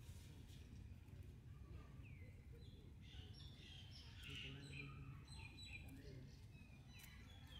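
Faint, scattered bird chirps, short rising and falling notes, over a steady low outdoor rumble.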